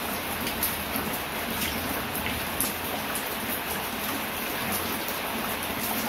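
Steady light rain falling, with many separate drops tapping irregularly throughout.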